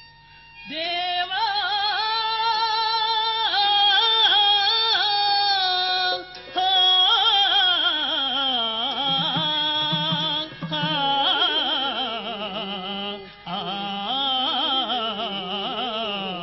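Burrakatha singing: one voice sings long, ornamented melodic phrases with wavering glides and held notes, beginning about a second in and pausing briefly near the middle.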